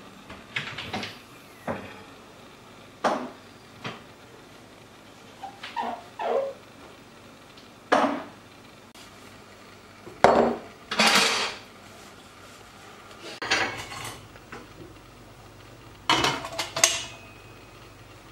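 Dishes and pots being handled and put away at a kitchen sink: a series of separate clinks and knocks of crockery and metal, coming at irregular intervals of one to two seconds.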